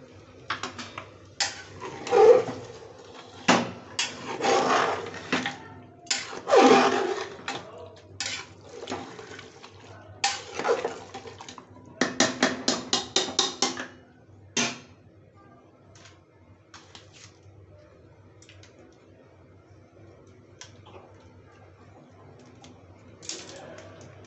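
A metal ladle stirring and scraping mutton and onions in an aluminium pressure cooker, with a quick run of about ten clicks around twelve seconds in. After about fifteen seconds it goes much quieter.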